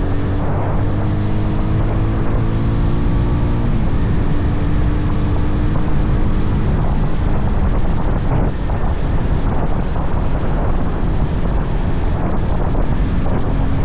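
Bajaj Pulsar 220F single-cylinder engine running under way, with wind noise on the microphone. The engine note steps down in pitch about four seconds in, then sinks into the wind noise from about halfway.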